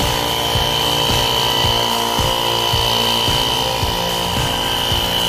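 Small 12-volt BMW portable tyre compressor running steadily, inflating a plugged car tyre through a hose on the valve, with a steady high whine over its hum. A regular low thump about twice a second runs under it.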